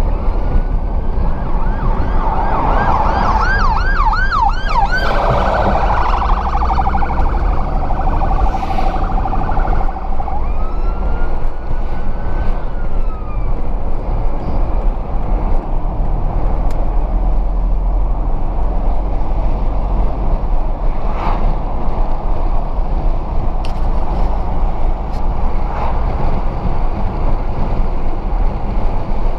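Steady road and engine noise inside a Peugeot car's cabin. A fire engine's siren wails over it, switches to a fast yelp about four seconds in, then fades, with a faint wail heard again briefly around twelve seconds in.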